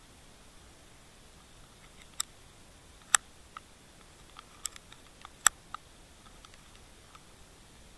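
Irregular sharp clicks picked up underwater, about eight of them, the loudest about three seconds in and again about five and a half seconds in, over a faint steady hiss.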